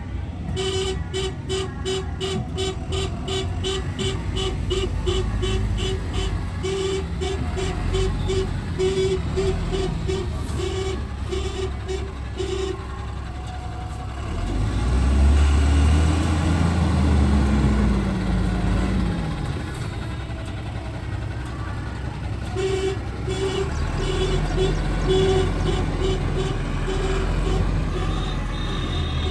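Tata truck's diesel engine running, with its reverse alarm beeping about twice a second as it backs up. Partway through the beeping stops and the engine revs louder for several seconds, its pitch rising and falling. Near the end the beeping starts again.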